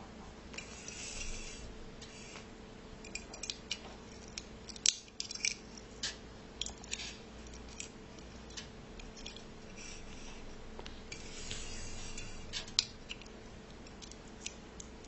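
Small hard objects being handled: scattered clicks and taps, the sharpest about 5 s in and near 13 s in, with stretches of scraping and rubbing, over a faint steady hum.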